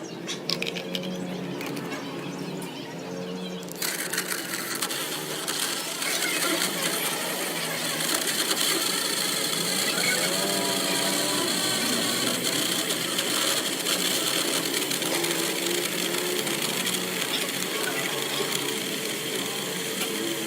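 Mini portable USB blender with six blades running, its small motor whirring steadily as it blends; it switches on suddenly about four seconds in.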